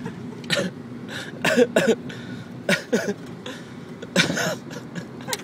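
Four short bursts of coughing over the steady low hum of a car cabin on the move.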